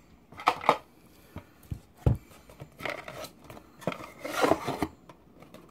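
Cardboard box and its insert being handled: scattered rubs, scrapes and light knocks, with a low thump about two seconds in and a longer rustle near the end.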